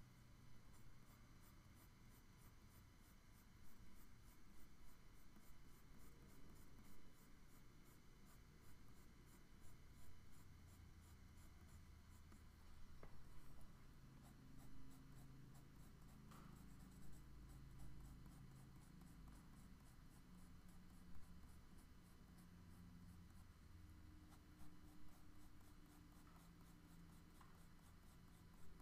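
Faint scratching of a pencil on drawing paper as hatching strokes are laid down to shade a dark area.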